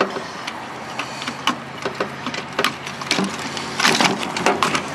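Irregular clicks, taps and rattles of hand tools, wires and parts against the metal chassis of an old Panasonic FM receiver being taken apart, with a denser cluster of clicks about four seconds in.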